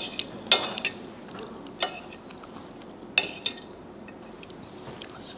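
A metal fork and spoon clink against a ceramic plate while gathering noodles: a handful of sharp, separate clinks a second or so apart, the loudest about half a second, two seconds and three seconds in.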